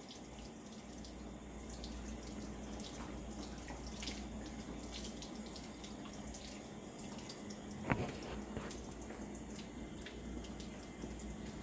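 Water running from a sink tap and splashing over a gutted quail carcass as it is rinsed by hand, a steady rushing. A single brief knock about eight seconds in.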